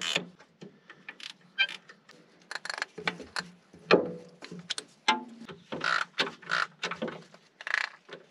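Hand ratchet wrench clicking in short, uneven runs as a starter mounting bolt is turned, with scattered metal taps and a louder knock about four seconds in.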